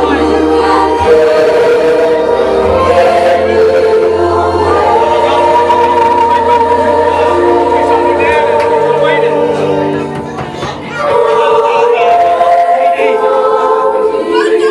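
A small choir of women singing together in long held notes, dipping briefly about ten seconds in before carrying on.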